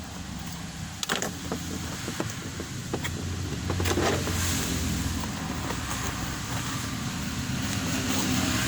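Toy box being opened by hand: a few sharp clicks and a rustle of cardboard and packaging, over a steady low hum that swells about four seconds in.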